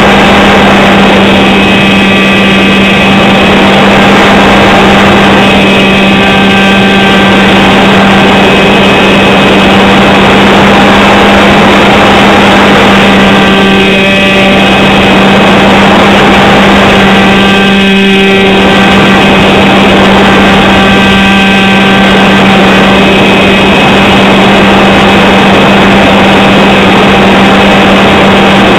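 Loud, steady drone of a model airplane's motor and propeller, picked up by a camera mounted on the plane. The pitch holds even, and swells of rushing noise come and go every few seconds.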